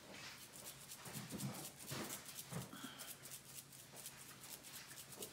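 Seasoning shaker being shaken over a casserole dish, the granules rattling faintly in quick repeated shakes.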